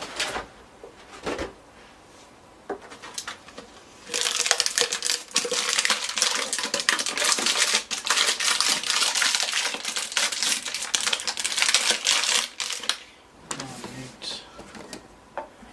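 Packaging of a new PC power supply being opened and handled. From about four seconds in there are some nine seconds of dense crackling and clicking, with a few single clicks and knocks before and after.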